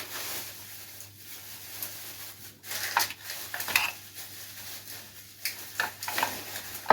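A plastic bag of flour rustling and crinkling as it is handled and salt is added to it, with irregular light clicks of kitchen utensils.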